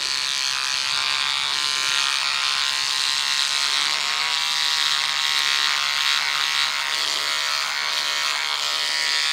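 Electric beard trimmer buzzing steadily as it cuts along the neckline of a beard, set to zero with no guard.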